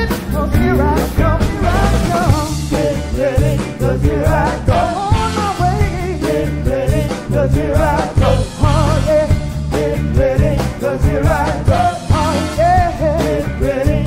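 Upbeat soul music: a band playing with a steady beat under continuous singing.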